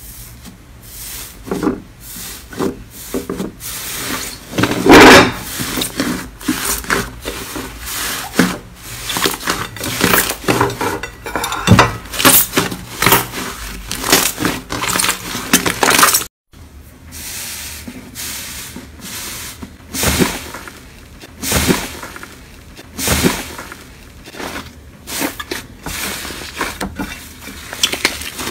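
Hands pressing, squeezing and kneading thick slime, giving a dense run of irregular crackles, pops and squishes. There is a short break about sixteen seconds in, after which a second lump of slime is kneaded with the same kind of crackling.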